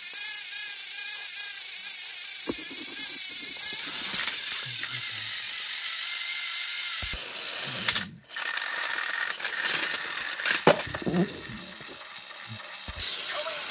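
Battery-powered Thomas & Friends toy engines straining against each other, their small motors and gears whirring and wheels grinding on plastic track, with scattered clicks and knocks. Near the middle the sound breaks off and a lighter run of motor and gear noise follows, with a few sharp clicks.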